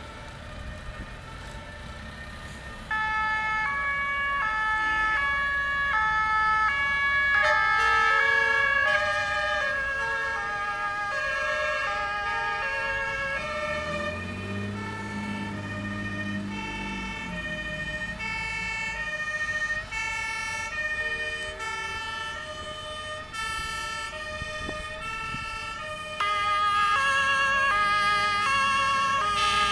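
Several fire engines sounding two-tone sirens at once, the overlapping tones stepping back and forth between two pitches, starting about three seconds in and growing louder near the end. A truck engine rumbles past around the middle.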